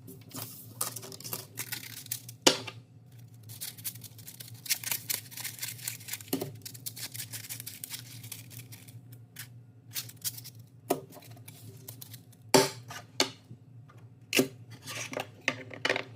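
Thin 3D-printed plastic domino cards being shuffled and handled: long runs of dense plastic clicking and rustling, broken by a few sharper clacks, over a low steady hum.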